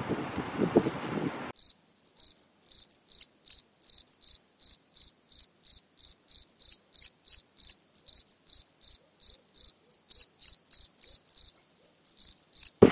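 Cricket chirping sound effect, the stock comic 'crickets' used for an awkward wait: an even high chirp repeated about four times a second. It starts abruptly about a second and a half in, cutting off outdoor ambience, and stops abruptly near the end.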